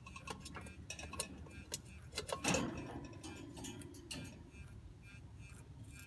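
Parrots' beaks clicking and nibbling on sweet potato, irregular small clicks with a louder crunch about two and a half seconds in.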